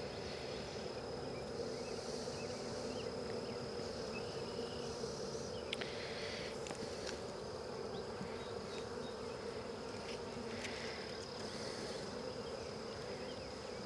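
Honey bees buzzing around an open hive during a frame inspection: a steady, continuous hum of many bees.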